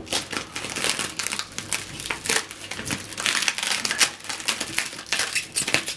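Packaging being handled and unwrapped: a continuous, irregular crinkling and crackling.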